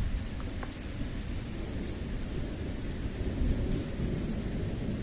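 Low rumble of thunder fading away, with light rain falling.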